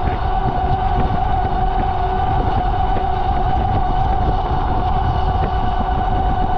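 Riding an Ariel Rider Grizzly e-bike at steady speed: wind rushing over the microphone and road rumble, with a steady high whine.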